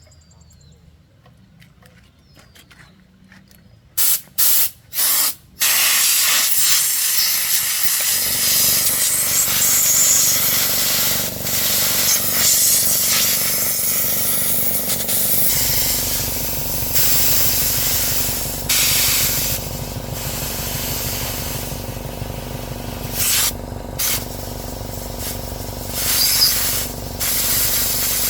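A pressurised spray hissing: three short bursts, then continuous spraying. A motor hum joins about eight seconds in and grows much stronger about halfway through.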